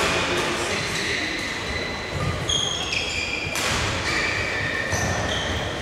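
Short, high squeaks of shoes on a sports-hall court floor and a single sharp knock about three and a half seconds in, over a low murmur in the large hall.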